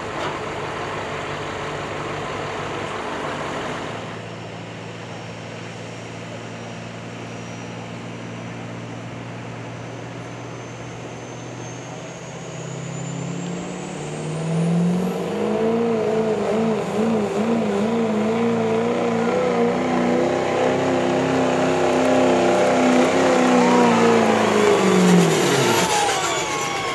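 Work-stock diesel pickup making a truck-pull pass: the engine runs low at first, then revs up about halfway through and holds high under load with a wavering pitch. A high turbo whistle climbs slowly and holds. Near the end the driver lets off, and engine and whistle drop away quickly.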